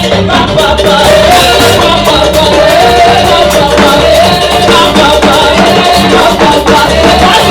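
Loud, upbeat gospel praise music: a sung melody over a steady driving beat with percussion.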